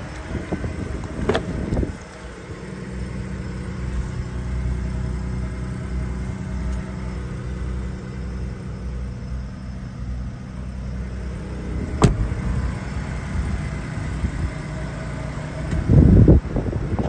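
Ford F-150 Raptor's twin-turbo V6 idling steadily. A single sharp click comes about twelve seconds in, and a loud burst of wind noise hits the microphone near the end.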